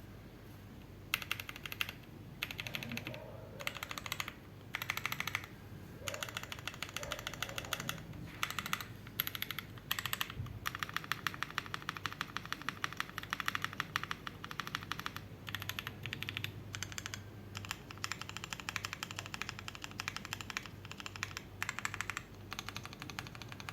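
Typing on a gasket-mounted aluminium-plate mechanical keyboard with lubed Boba LT tactile switches: quick runs of keystrokes in bursts with short pauses between them.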